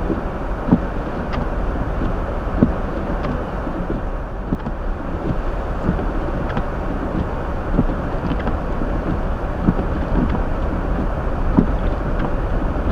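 Steady road and tyre noise of a 2023 Hyundai Elantra driving slowly on a snow-covered road, heard through the dashcam. It is a low, even rumble with scattered light ticks.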